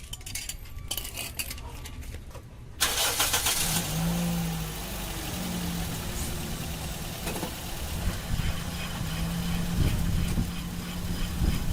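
Toyota Vios engine cranking and starting about three seconds in, then running steadily with a low hum and slight changes in pitch. The car is raised so the wheel spins in gear, as a test for a grinding, scraping noise near the brake.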